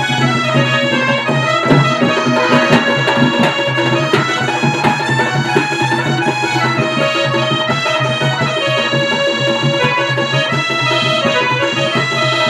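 Live Odia folk music for a Danda Nacha dance: a held, reedy melody over steady beating on two-headed barrel drums.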